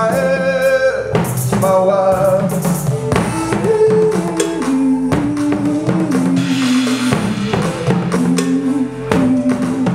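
A live band playing: a drum kit with bass drum keeps the beat under a sung vocal melody that steps up and down in pitch.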